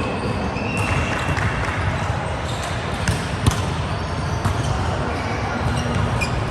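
Volleyball game: ball hits, two sharp ones about three seconds in, over a steady background of players' voices and movement.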